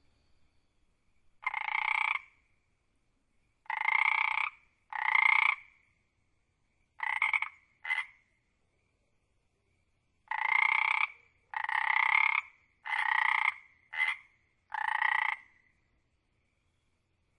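Frog croaking: about ten separate croaks, each under a second long, coming in uneven groups with silent gaps between them, two of the croaks much shorter than the rest.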